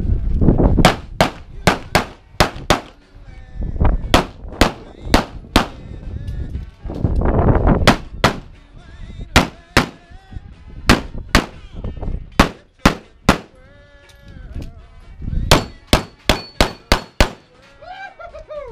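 Rapid strings of pistol shots from a competition stage run: pairs and strings of up to six shots about a third of a second apart, broken by short pauses while the shooter moves, with the fastest string near the end.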